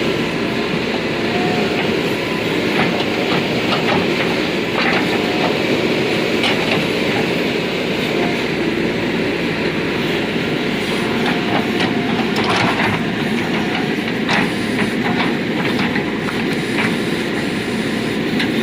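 JCB 3DX backhoe loader's diesel engine working steadily under load, with scattered knocks and clanks from the digging.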